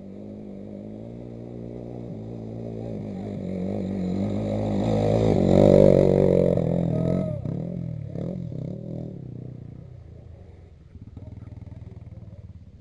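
Off-road vehicle engine working under load, getting steadily louder to a peak a little before halfway, then fading as it moves away.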